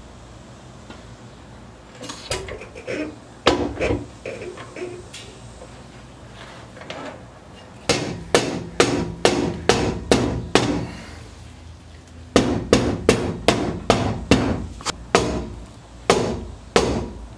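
Hammer blows: a few scattered knocks, then two runs of steady, evenly spaced strikes about two to three a second, the second run starting about twelve seconds in.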